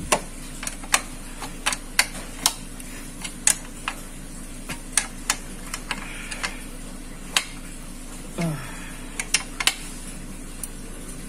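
Metal clicks and clinks from a ring spanner being worked in short strokes on a motorcycle exhaust mounting bolt, with pliers holding the nut on the far side. The clicks are sharp and irregular, over a steady low hum.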